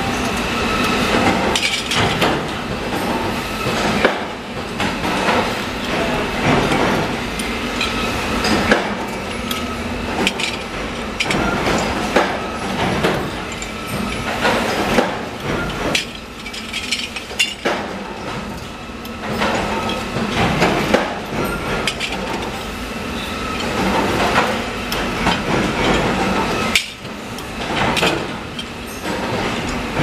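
Bench drill presses running while metal drawer-pull blanks are drilled, giving a steady machine hum. Frequent metallic clinks and knocks sound throughout as the metal parts are handled and tossed into the baskets.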